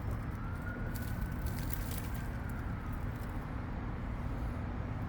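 A faint siren in the distance, wailing slowly up and then down in pitch, over a steady low outdoor rumble.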